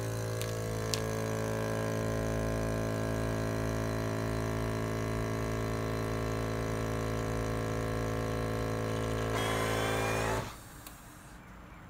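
Vacuum pump of an ASV-320D nozzle-type commercial vacuum sealer running steadily with a hum, pulling the air out of an embossed vacuum bag around pieces of meat. Near the end a short hiss rises over the hum, then the machine cuts off suddenly.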